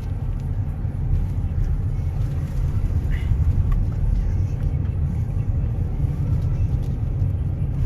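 Steady low rumble of a car's engine and tyres, heard from inside the cabin while driving slowly, with a few faint small ticks.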